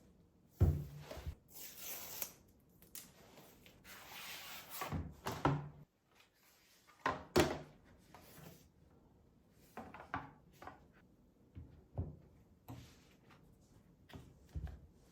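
Small objects being handled and set down: irregular knocks and clicks with short bursts of rustling, as iPad accessories and their packaging are unpacked and put on a table.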